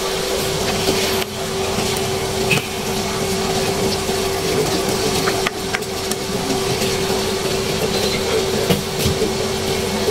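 Pork ribs simmering in sauce in a wok: a steady hiss of cooking under a steady hum, with a few knocks of a spatula against the pan.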